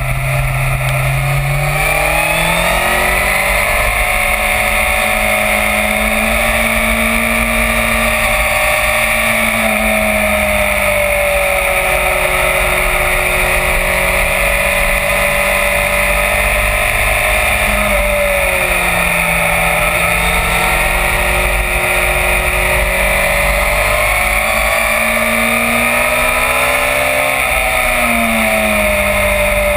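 Yamaha FZ1's inline-four engine under way, its pitch climbing as it accelerates about two seconds in, then easing off and picking up again twice through the bends, over a steady rush of wind.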